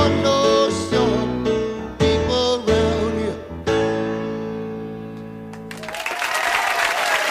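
A song with piano and singing ends on a held chord that fades away, and about six seconds in, applause breaks out.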